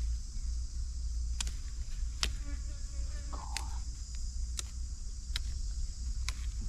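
Insects droning in a steady, high, even buzz over a low rumble, with a few sharp clicks scattered through.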